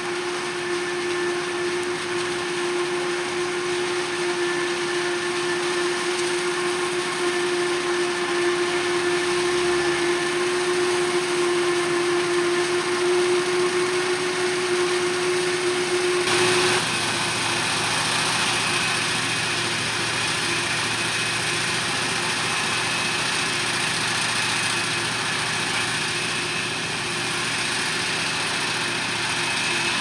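Krone BiG X 700 forage harvester chopping maize, its engine and chopping drum running steadily at work, with the tractor alongside also running. There is a steady hum with a fainter whine above it, and the mix of tones changes abruptly about halfway through.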